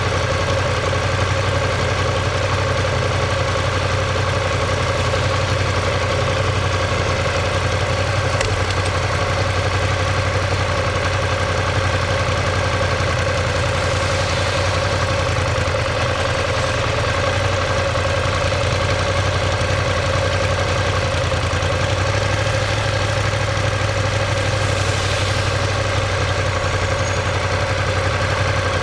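Ducati Monster 1200S's L-twin engine and exhaust running at a steady engine speed, the pitch holding nearly constant throughout.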